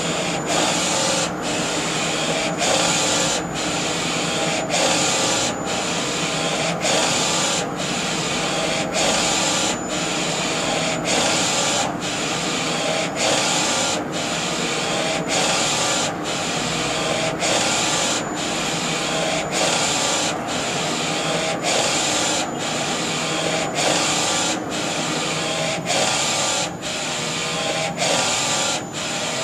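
Flatbed inkjet T-shirt printer with an Epson DX5 print head printing: the print-head carriage shuttles back and forth across the garment, its drive running with a brief break about once a second between passes, over a thin, steady high whine.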